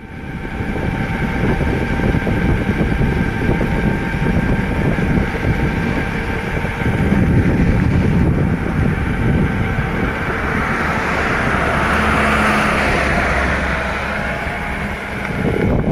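Wind buffeting the microphone of a bicycle rolling fast down a highway. A truck's engine passes close alongside near the end.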